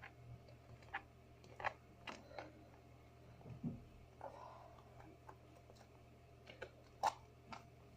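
Slime being stirred with a marker in a small plastic container: irregular soft clicks and taps over a faint low hum.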